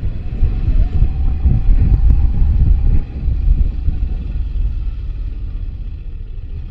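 Moto Guzzi V85TT's air-cooled V-twin engine running under throttle off-road, with wind buffeting the microphone. It is louder for the first three seconds, then eases off suddenly about three seconds in.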